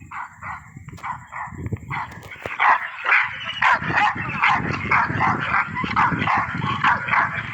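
Dogs barking in a rapid run of short barks, a few a second, growing louder about two seconds in.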